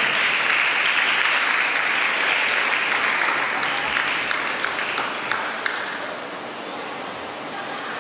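Crowd applauding, with a few sharp single claps standing out, dying away about six seconds in.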